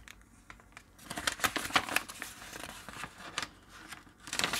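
A folded paper instruction sheet being unfolded by hand: crisp paper rustling and crinkling in a quick run of rustles from about a second in, loudest near the end as the sheet opens out.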